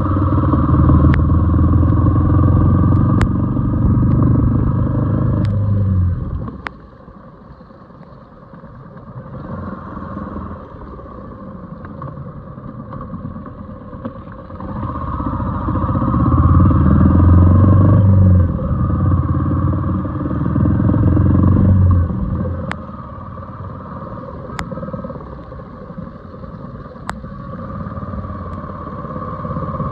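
A motor vehicle's engine running, loud for the first six seconds and again from about fifteen to twenty-two seconds, dropping away in between, with a few sharp clicks.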